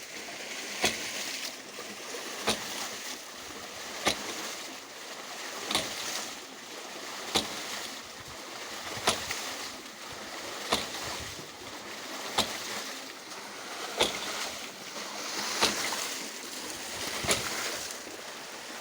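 Hydraulic ram pump working: its waste valve slams shut with a sharp clack about every 1.6 seconds, over a steady rush of flowing water. Each clack is a pumping stroke, the water hammer that drives water up the delivery pipe.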